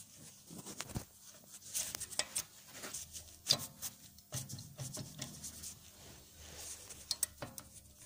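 Irregular light metallic clicks and rattles of a loose rear brake pad knocking in its caliper bracket. The pad is not held firmly by its retaining clip, and this is the source of the rattling over small bumps.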